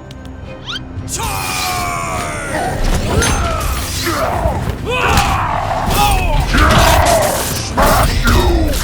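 Cartoon-style fight sound effects: thuds and booms with short gliding zaps and whooshes, over background music. A falling multi-tone sweep comes about a second in.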